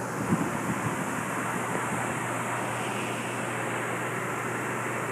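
Steady rushing background noise with a low hum, of the ventilation or air-handling kind, and a few soft knocks about half a second in.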